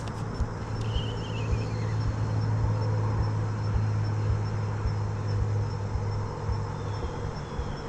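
Steady low mechanical hum, like a motor running, swelling slightly midway, over low rumbling; a short falling chirp sounds about a second in.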